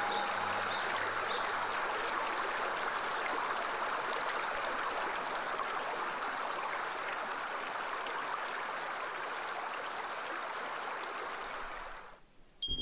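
Running water of a stream, a steady rushing that fades out near the end.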